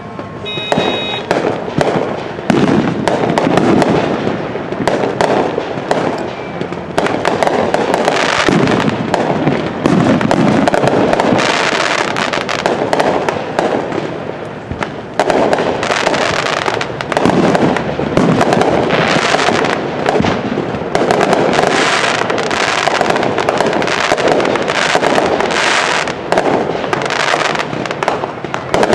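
Fireworks finale: a dense, continuous barrage of overlapping bangs and crackle that swells and eases in waves a few seconds long.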